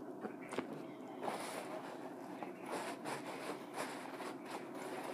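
A person eating: chewing and handling food, with an irregular run of short crackling and rustling noises.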